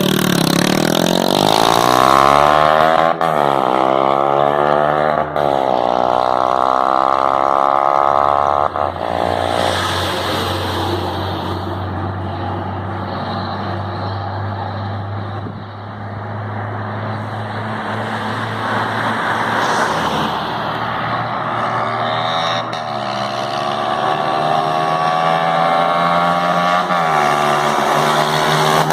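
Honda CG Fan motorcycle's single-cylinder four-stroke engine running loud with its exhaust pipe removed, accelerating through the gears. Its pitch climbs and drops at shifts about three, five and nine seconds in, then holds a steadier cruise before climbing through another shift near the end.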